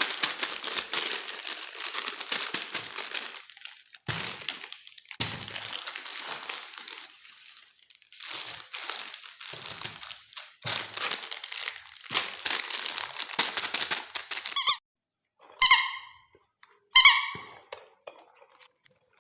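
Plastic packaging crinkling and crackling as it is handled and opened, in several long bursts with short pauses. Near the end come two short high squeaks about a second apart.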